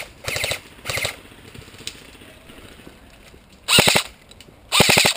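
Airsoft electric rifle fired close by in four short full-auto bursts, each a rapid rattle of shots over the whine of the gearbox motor; two come in the first second or so and two louder, slightly longer ones come near the end.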